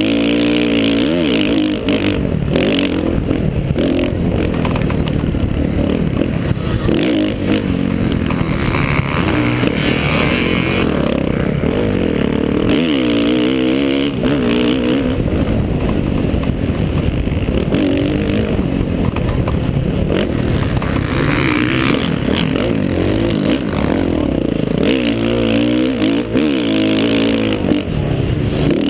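Small 50cc two-stroke motocross bike engine revving up and down, its pitch rising and falling over and over as the rider works the throttle around the track. Heard on board from a helmet camera.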